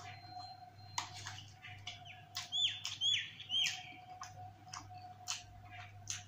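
Small clicks of a plastic spoon and mouth sounds from eating dahi puri. About halfway through, three short chirps falling in pitch, evenly spaced and louder than the eating, in the manner of a bird call.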